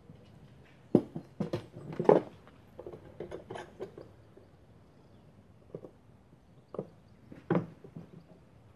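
Metal bar clamps and a steam-bent wooden strip knocking and clicking as they are fitted against a curved bending form. There is a quick cluster of knocks in the first couple of seconds, then a few single knocks, the loudest near the end.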